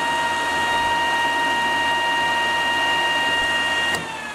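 Grizzly G0891 helical-cutterhead planer running empty with a steady whine, its feed-roller chain drive now held in tension by a newly fitted idler pulley. About four seconds in it is switched off and the whine falls in pitch as it spins down.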